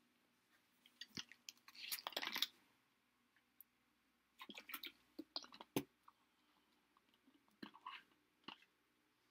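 Plastic drink bottle crackling and clicking in the hand in three short bouts while it is drunk from.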